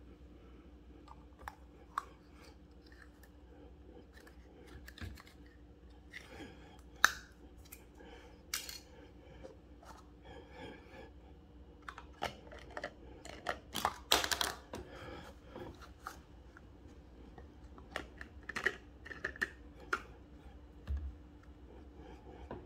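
Plastic cap and pour spout of an International Delight creamer bottle being worked off by hand: irregular clicks, snaps and short scraping rubs. The sharpest click comes about seven seconds in, and a run of louder scrapes comes around fourteen seconds.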